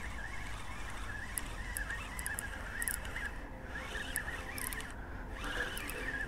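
Spinning reel being cranked while a hooked fish is played: a wavering, high-pitched whir from the reel's gears and line, dipping briefly twice in the middle.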